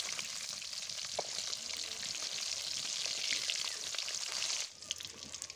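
Hilsa fish pieces frying in hot oil in a steel kadai, a steady sizzle with small crackles as they are turned with a metal spatula. The sizzle drops off sharply near the end.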